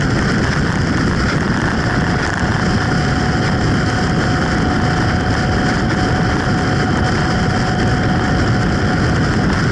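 Motorcycle riding at highway speed: a steady, loud rush of wind, engine and tyre noise, with a faint steady whine through the middle of it.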